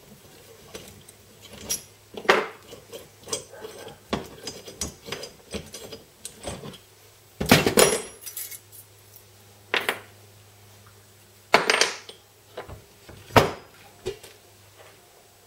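Steel tools and small valve-train parts from a Honda CT110 cylinder head clinking and clattering on a workbench as a valve spring compressor, valve springs, retainers and keepers are handled and set down. Scattered light clicks run throughout, with louder clanks about halfway through and again near the end.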